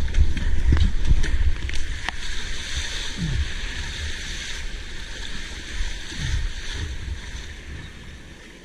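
Splashing and rushing water around a sea kayak paddling through small breaking surf and foam, with paddle strokes in the water and wind buffeting the microphone as a rough low rumble. A few sharp splashes in the first two seconds; the sound fades off toward the end.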